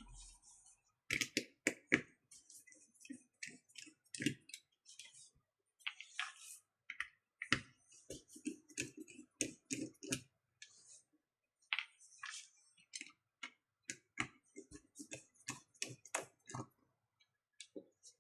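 Irregular small clicks and taps of a precision screwdriver and the watch's case being handled while the back's tiny Torx 6 screws are taken out, several a second in clusters with brief gaps.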